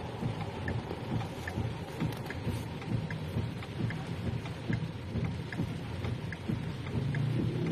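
Car hazard-light flasher ticking steadily about once every 0.8 seconds inside the car cabin, over a low crackling rumble.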